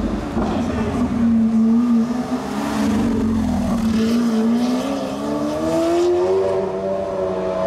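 Lamborghini Aventador's V12 engine through a Capristo exhaust, pulling at low to moderate revs: the note holds steady, dips slightly about four seconds in, then rises and falls back near the end.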